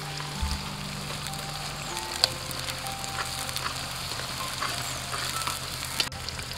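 Sliced onions frying in hot oil in an aluminium kadai, sizzling steadily as a wire-mesh strainer stirs them. There is a sharp clink about two seconds in and another near the end, from the strainer striking the pan.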